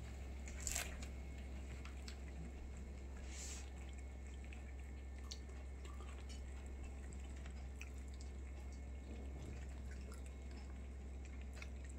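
Several cats eating together from one dish: faint, scattered wet clicks and smacks of chewing and licking, over a low steady hum.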